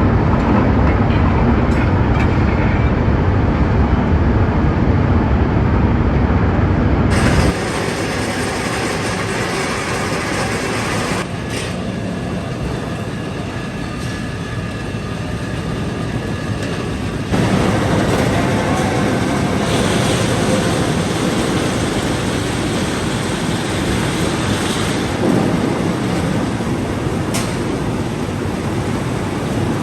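Loud, steady industrial machinery noise in a steel mill, changing abruptly about 7, 11 and 17 seconds in.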